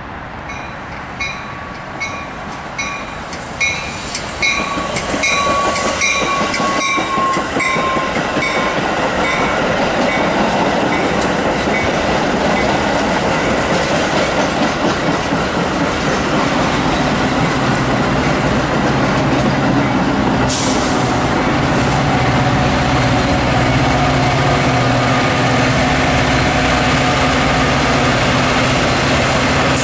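Metra bilevel commuter train rolling past, its wheels rumbling and clicking over the rail joints, with a bell ringing at a regular beat during the first several seconds and one sharp clank about twenty seconds in. Near the end the EMD F40PHM-3 diesel locomotive pushing at the rear passes, adding a steady low engine drone.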